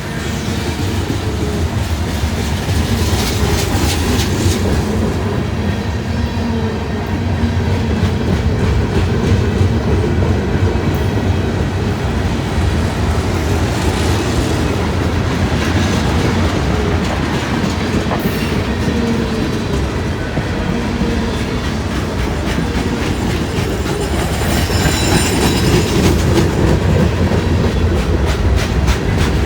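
Freight train cars rolling past at close range: a steady rumble with the wheels clicking over the rail joints.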